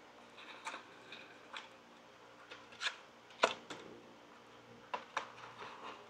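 Foam-board pieces being slid into interlocking slots by hand: faint rubbing and scraping with scattered light clicks and taps, the sharpest about three and a half seconds in.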